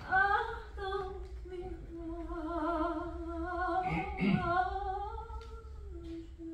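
A woman singing long held notes with wide vibrato, moving between several pitches, and ending on a steady note without vibrato.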